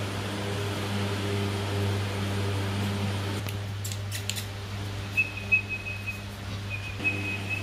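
Steady low electric hum of a pedestal fan running. A few sharp clicks come about four to five and a half seconds in, and a thin high whine sounds twice in the second half.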